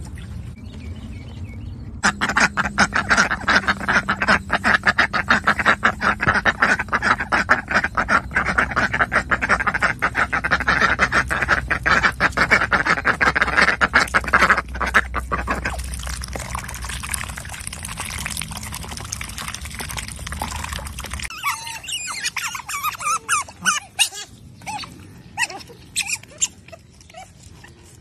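Domestic duck quacking in a long, rapid run of loud calls. After about twenty seconds this gives way to shorter, scattered squeaky calls.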